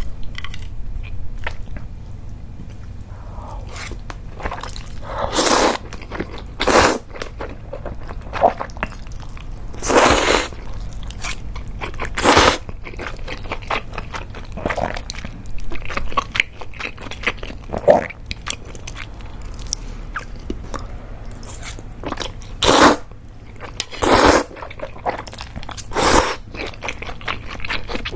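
A person eating mentaiko cream udon close to the microphone: loud slurps of noodles come every few seconds, about seven in all, with wet chewing in between.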